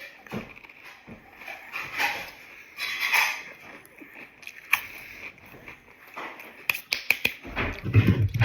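Close-miked eating sounds: chewing and crunching of a turkey sandwich and chips in irregular bursts and clicks. Near the end a low, rough rumbling sound begins.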